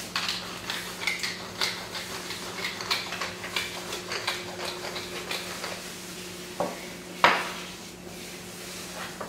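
Pepper mill grinding over a roast in a run of small, irregular clicks, followed by two sharper knocks about two-thirds of the way through as something hard is set down.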